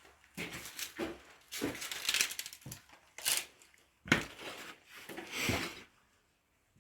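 Footsteps crunching over debris on a floor, a series of irregular crunches that stop about six seconds in.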